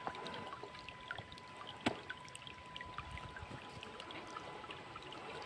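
Small stream trickling and splashing over rocks, with a faint steady high tone underneath. A single sharp knock about two seconds in.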